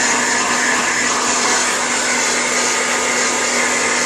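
Hair dryer running steadily: a continuous rush of air with a low steady hum beneath it.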